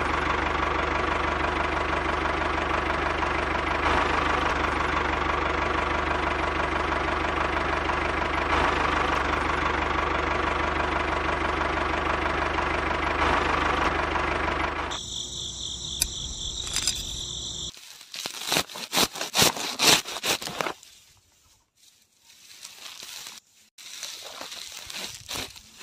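A small motor running steadily for about fifteen seconds as a homemade toy tractor drives along; it then stops. Crackling and rustling follow as handfuls of rice seedlings are handled and dropped into the toy trolley.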